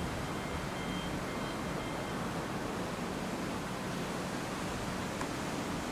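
Steady rushing noise that holds at one level with no distinct events, with a faint high whine in the first couple of seconds.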